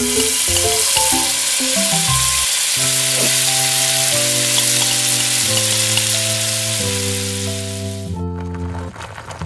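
Chopped green onions sizzling loudly in hot oil in a miniature stainless-steel wok, over background music. The sizzle stops suddenly near the end.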